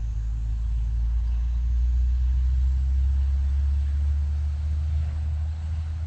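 Road traffic: the low rumble of a passing vehicle, swelling and then fading away.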